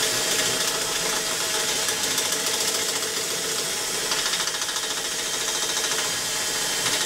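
Handheld power drill running steadily with its bit cutting into a wooden engine firewall, enlarging a hole for a linkage.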